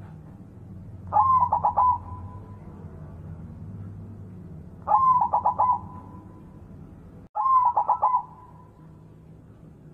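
White zebra dove (perkutut) cooing three times, about three seconds apart. Each phrase is a rising note breaking into a quick stutter of about five notes, over a low steady hum.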